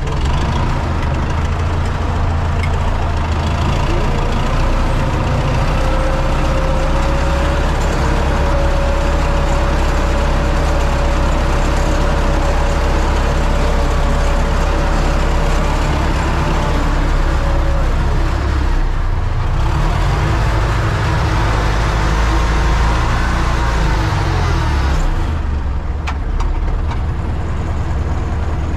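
U650 tractor's four-cylinder diesel engine running steadily under load from inside the cab, pulling a cultivator through the field. A faint thin whine comes and goes over it in the middle, and the engine note shifts a little in the last third.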